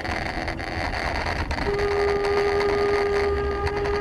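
Car horn giving one long steady blast that starts about a second and a half in, heard inside a car over low engine and road rumble.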